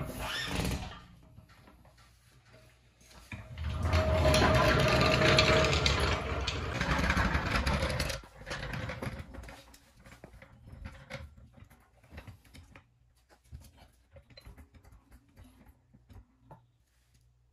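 Steel floor jack rolled across a concrete garage floor, its casters and frame rattling loudly for about five seconds, with a sharp clack at the start and scattered light clicks and knocks afterwards as the jack is set in place.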